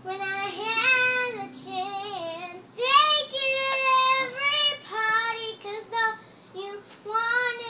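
A young girl singing solo, phrase after phrase, with a long held note about four seconds in.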